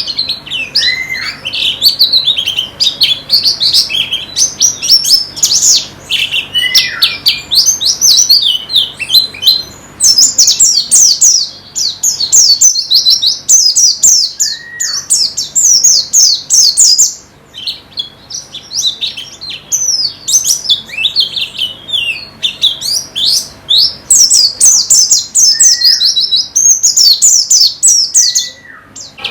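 Pleci (white-eye) singing: long runs of fast, high twittering, broken by a few short, lower down-slurred call notes and a brief pause about seventeen seconds in.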